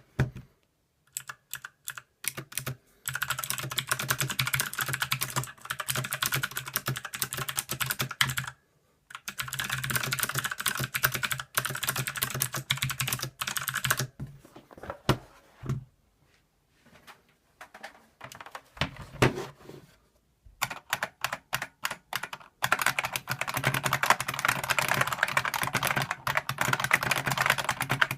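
Fast typing on a clicky mechanical keyboard: rapid runs of key clicks lasting several seconds each, broken by a few pauses with scattered single keystrokes.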